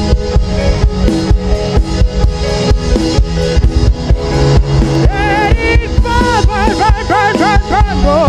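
Music with a steady drum-kit beat; about five seconds in a wavering, bending melody with vibrato enters over it.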